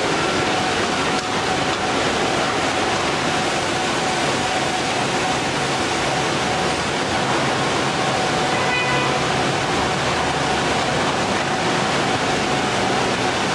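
Plastic recycling plant machinery running: a steady, dense hiss with a faint constant tone through it.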